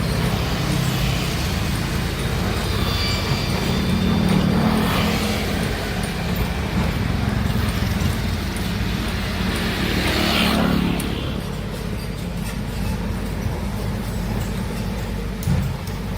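Heavy diesel machinery, an excavator at work, running with a steady low engine rumble. The noise swells twice, and the higher hiss drops away suddenly about eleven seconds in.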